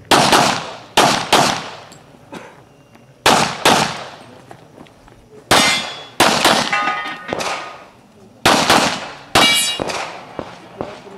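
A handgun fired in a rapid string of about fifteen shots, often in quick pairs. Steel targets ring after some of the hits, in the middle and near the end.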